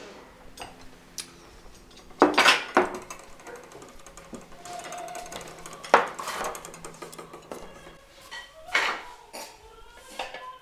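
Dishes and cutlery clinking in a few sharp knocks: three close together about two seconds in, then single clinks spaced a few seconds apart.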